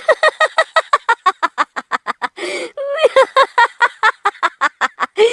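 A woman's high voice laughing in long rapid runs of short 'ha' pulses, about seven a second, broken by a single longer syllable about two and a half seconds in.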